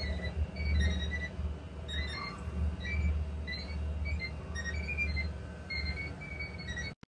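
Boat's outboard motor running under way, a steady low rumble heard from inside the wheelhouse, with short high-pitched beeping notes scattered over it.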